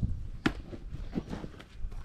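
Footsteps and light handling knocks while lining up the next axe strike on a firewood round, with one sharp knock about half a second in.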